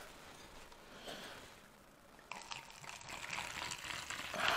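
Fruit wine poured from a glass bottle into a plastic cup. The trickle starts about halfway through and grows louder toward the end.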